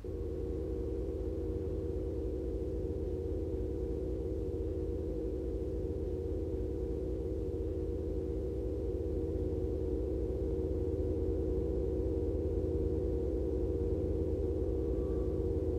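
Steady electronic drone: a few held tones close together in pitch over a low hum. It cuts in suddenly at the start and grows a little louder partway through.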